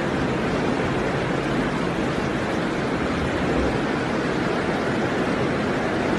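Flash-flood water rushing along a street in a fast, churning torrent: a steady, even rush of water.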